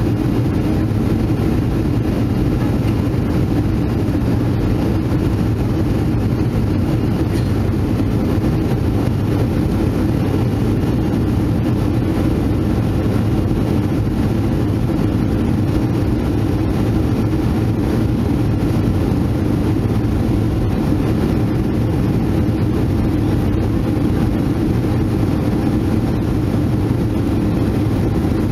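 Steady in-flight cabin drone of a Boeing 737-500, heard from a seat over the wing: the CFM56-3 turbofan engines and the rush of air along the fuselage, a deep, even noise with a few faint steady hums on top.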